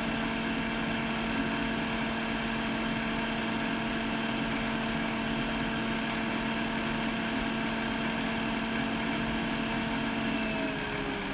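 Steady hum of a small electric fan motor with a constant pitch, which drops in pitch near the end as the motor slows down.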